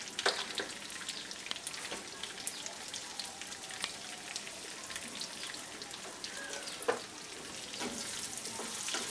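Potato chunks frying in hot oil in a pan, a steady sizzle with scattered pops and crackles. Near the end a wooden spatula stirs them and the sizzle gets a little louder.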